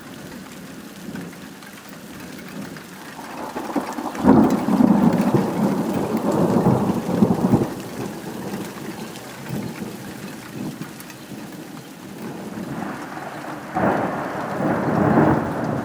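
Rain falling steadily, with thunder twice: a sudden clap about four seconds in that rumbles on for about three seconds, and another near the end.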